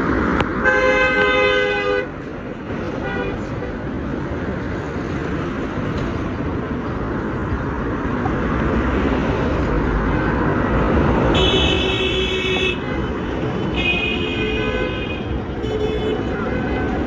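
Vehicle horns honking over steady road traffic noise: one horn blast about a second in, then three more in quick succession in the last third.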